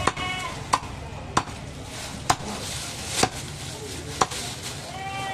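Butcher's cleaver chopping goat meat and bone on a wooden tree-stump block: about six sharp chops, roughly a second apart.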